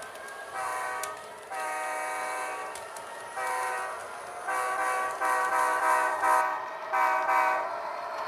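Sound-equipped HO scale model locomotive blowing its multi-note chime horn in a string of blasts, some short and some long, over a steady rolling hiss.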